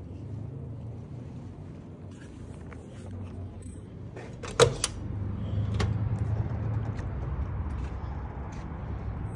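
A glass-panelled exit door's push bar clacking sharply as the door is shoved open about halfway through, with a second, lighter knock about a second later. After that the steady low rumble of the open air grows louder.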